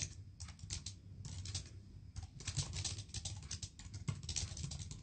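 Typing on a keyboard: irregular runs of light key clicks with short pauses between them.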